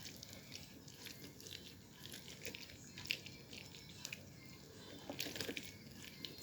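Faint wet squishing and small crackles of orange being pressed for juice, with a few slightly louder clicks around the middle and again near the end.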